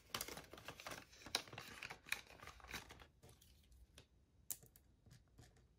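Paper banknotes rustling and flicking as they are handled and counted, with a few faint clicks after about three seconds.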